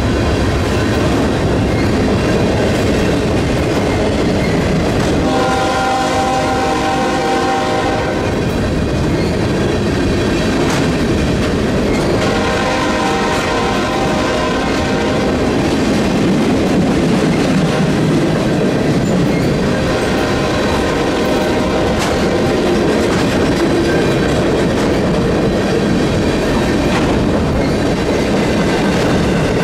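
A freight train of empty flat cars rolls past at speed, with a steady rolling noise of wheels on rail. The locomotive's multi-tone air horn sounds in long blasts about five and twelve seconds in, and again around twenty seconds.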